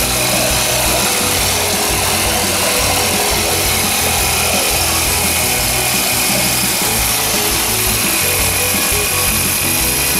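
Small brush-cutter-style petrol engine running steadily at high speed, driving a 4-inch pipe water pump, with water gushing from the pipe's outlet.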